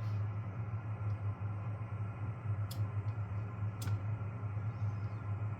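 A steady low hum, with two sharp clicks about a second apart near the middle.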